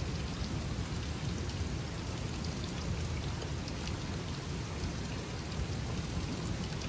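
Steady hiss of water, spread evenly with no distinct events.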